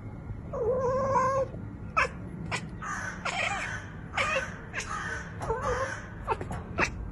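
Domestic cat chattering: a wavering chirp-like call, then a run of quick, irregular clicking chirps with a few short squeaks. This is the sound a cat typically makes while watching prey it cannot reach.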